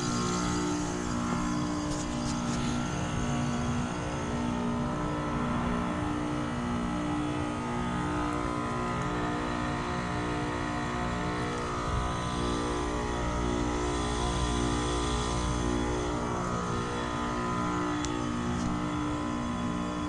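Two American Standard Silver Series heat pump outdoor units running side by side: a steady compressor and fan hum with a low drone that pulses slowly and evenly.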